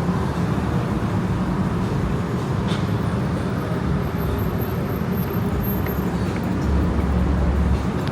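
Steady road and engine noise of a moving car, a continuous low rumble that swells slightly near the end.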